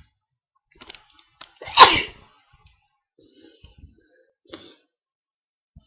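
A person's loud sneeze about two seconds in, set off by breathing in pepper, with a few faint short sounds before and after it.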